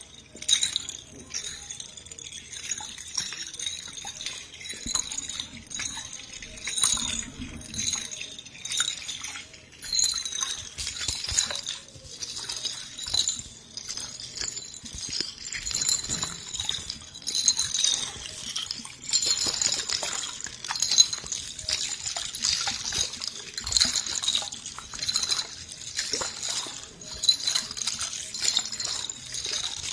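Close-miked ASMR trigger sounds: a dense, continuous stream of small crisp clicks and crackles.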